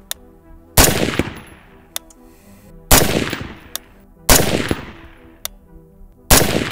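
Four single rifle shots from a PSA Freedom AR-15, fired one at a time with about 1.5 to 2 seconds between them. Each is a sharp crack with a long echoing tail.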